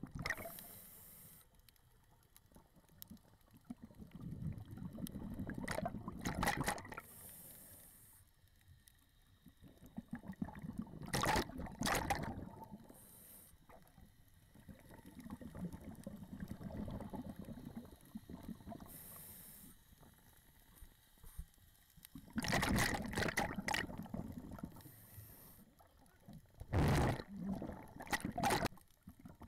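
Scuba diver breathing through a regulator underwater: a bubbly rush with each exhale and a short hiss with each inhale, repeating in a slow cycle of about one breath every five to six seconds.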